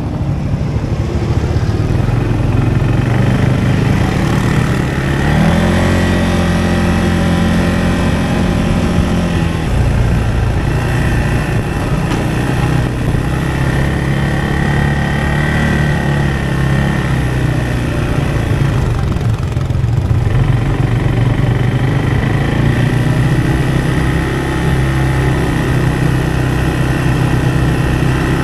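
A vehicle engine running steadily, with its speed rising about five seconds in and falling back at about ten seconds, then holding fairly even with small rises and falls.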